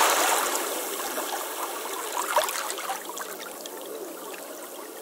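Running water trickling and gurgling, gradually fading out.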